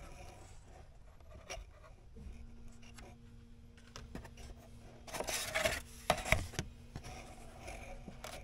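Paper and card stock being handled in a cardboard box: light rustling and rubbing, loudest in a burst of scraping about five to six and a half seconds in as a printed card is slid out of the box.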